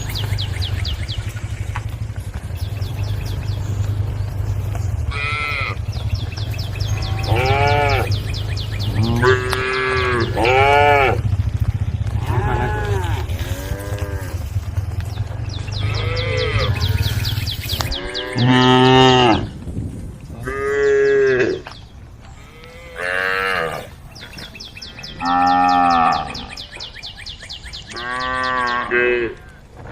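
A herd of cows mooing, many long calls overlapping, with a steady low hum under them for the first half. In the second half five loud single moos follow one another, about every two and a half seconds.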